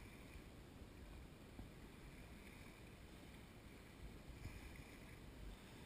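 Near silence: a faint, even low rumble of wind on the microphone.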